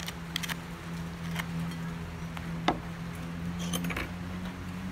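A spoon clicking against a small bowl as sugar is scraped into a stainless steel mixing bowl: a few light clinks, the sharpest about halfway through and a quick cluster near the end, over a steady low hum.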